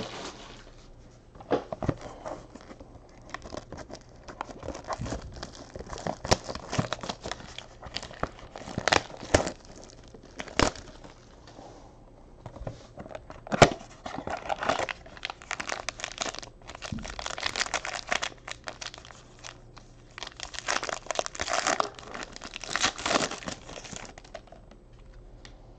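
Packaging of a Panini Spectra basketball card box and its foil pack being handled, crinkled and torn open: irregular crackling and tearing in clusters, with one sharp snap about halfway through as the loudest moment.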